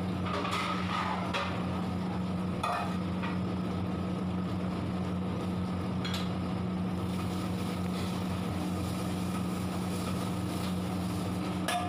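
Steady mechanical drone with a low roar under a large pan of simmering chicken curry, with a few light knocks about three and six seconds in and again near the end.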